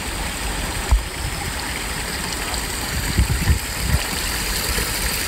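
Wind blowing across the microphone: a steady rushing noise with a few low, irregular rumbles from gusts.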